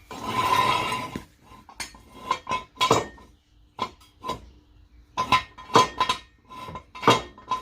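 Steel jack stands being set in place: a scraping noise in the first second, then a run of sharp, ringing metal clanks and clinks.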